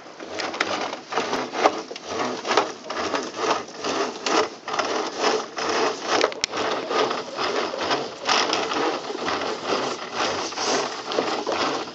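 A rope hauled through a deck block, making a rapid, uneven series of short rasping strokes, one with each pull of the line.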